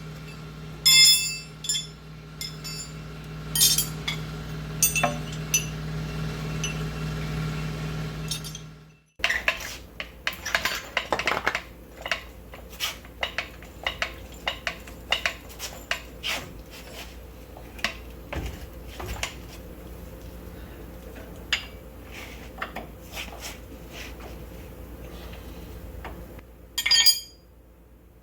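Metal hand tools clinking and clanking as wrenches are taken off and handled. A low hum runs under the first part, the sound cuts off abruptly about nine seconds in, and scattered metallic clicks and knocks follow, with one louder clink near the end.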